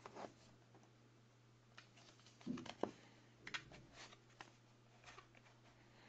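Cardboard packaging of a Zippo lighter box being handled: a scatter of light taps, scrapes and clicks, the loudest a soft thump with a couple of sharp clicks about two and a half seconds in, over a faint steady hum.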